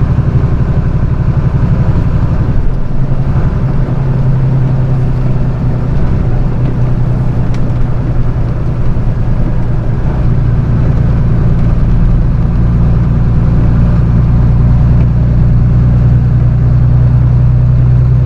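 Flatbed straight truck's engine running under way at low speed on a snowy road, a steady low drone. The engine note shifts about three seconds in, then holds steady.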